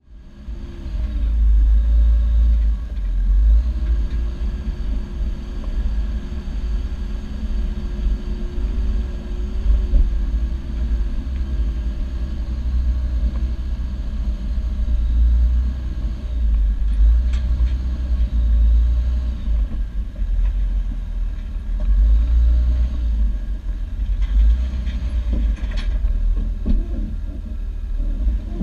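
Low, uneven rumble of a Jeep Wrangler's engine and drivetrain at crawling speed over rock, picked up through a hood-mounted camera. A few faint clicks come in about two-thirds of the way through.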